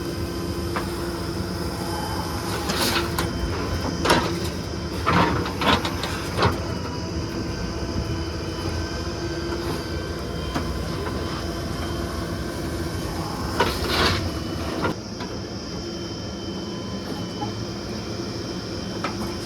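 Heavy diesel machinery running steadily, with a cluster of sharp metallic clanks about three to six seconds in and another pair around fourteen seconds.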